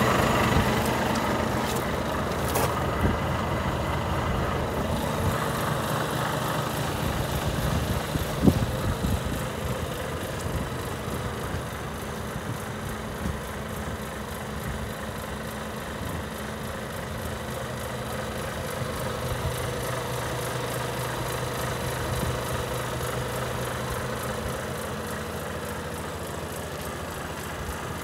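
Volvo FH4 500's 13-litre straight-six diesel idling steadily, with a single sharp knock about eight seconds in.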